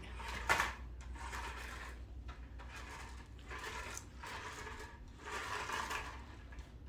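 Faint whir of a small electric RC car motor, swelling and easing several times, with a sharp click about half a second in.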